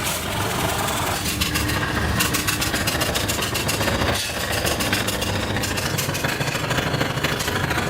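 Forging-shop machinery running steadily, with a rapid, even knocking through most of it and a brief dip about four seconds in.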